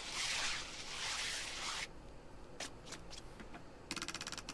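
Foley swishing noise for skis gliding over snow, in two long swells. It stops about two seconds in, and scattered sharp clicks follow, then a fast rattling clatter near the end.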